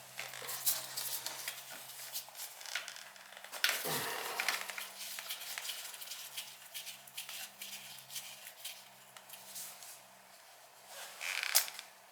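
Metal tools and fittings clicking and clattering in handling while work is done on an oil burner's fuel pump, with a louder clatter about four seconds in and another near the end, over a faint steady hum.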